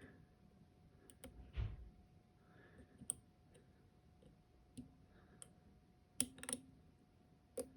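Faint, irregular small clicks of a dimple pick and tension tool working the worn pins inside a Dom IX 5kg dimple lock, with a few sharper clicks near the end and a soft low bump about one and a half seconds in.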